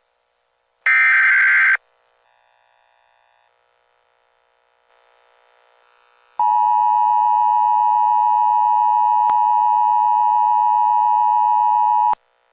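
Emergency Alert System tones: about a second in, a short burst of screeching SAME header data. After a gap comes the EAS two-tone attention signal (853 and 960 Hz sounded together), held steady for about six seconds and cutting off abruptly near the end.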